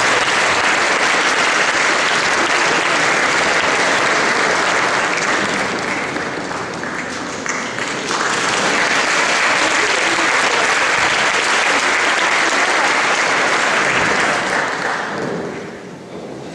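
Audience applauding in a concert hall: dense, steady clapping that sags briefly midway and dies away near the end.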